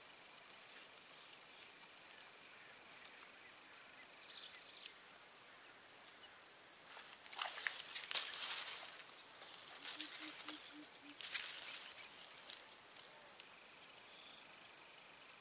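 Steady high-pitched chorus of insects singing together in several overlapping tones. Two short louder noises break in around eight and eleven and a half seconds in.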